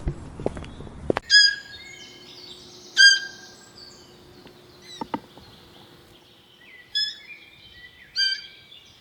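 Birds chirping: separate short, high calls every second or two with fainter twittering between, after a quick run of clicks like footsteps in the first second.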